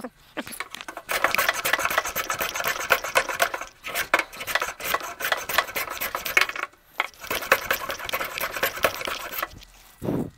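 Power drill boring a hole into the wooden workbench board and driving in the fixing screw: a rasping, rapidly clicking sound in three runs with short pauses between them, stopping shortly before the end.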